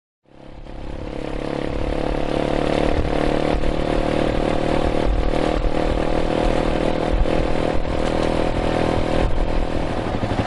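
Yamaha Serow's single-cylinder four-stroke engine running at a steady pace, fading in over the first second or so, with a few short knocks scattered through.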